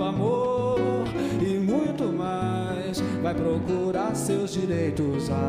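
Background music: an acoustic-guitar song with a singing voice.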